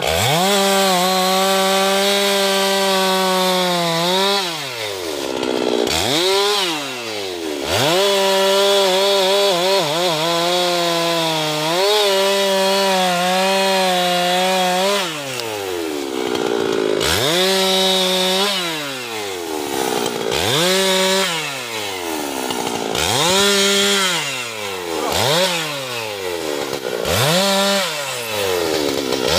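Husqvarna two-stroke chainsaw cutting teak wood. It is throttled up to a high steady pitch and held for several seconds at a time, then dropped back toward idle. Over the last third the throttle bursts come shorter, about every two seconds.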